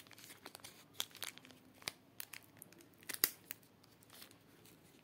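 Small clear plastic packet of spare silicone ear tips being crinkled and pulled open by hand: faint scattered crackles and clicks, the sharpest about three seconds in.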